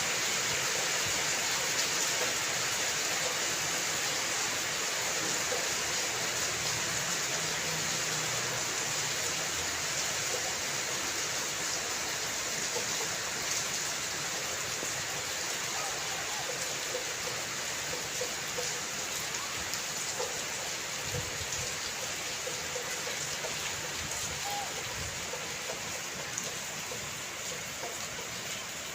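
Steady rain falling, an even hiss of many drops with no break, growing slightly quieter near the end.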